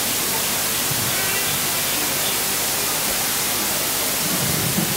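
Steady hiss of rushing background noise on an outdoor public-address feed, with faint indistinct voices underneath.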